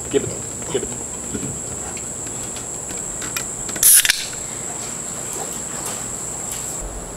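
A Dr Pepper soda can's ring-pull snapped open about four seconds in: a short, sharp hiss of escaping carbonation. A steady high-pitched whine runs underneath.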